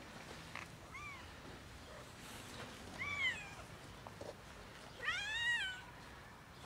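Tabby-and-white domestic cat meowing three times, each call rising and then falling in pitch; the third is the longest and loudest.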